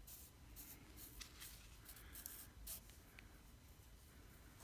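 Near silence, with faint scattered scratching and rubbing sounds of handling.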